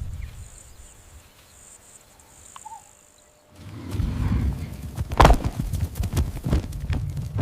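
Insects chirping in short repeated bursts. About three and a half seconds in they give way suddenly to a running animal's heavy footfalls and thuds on dry ground, with the loudest thud about five seconds in.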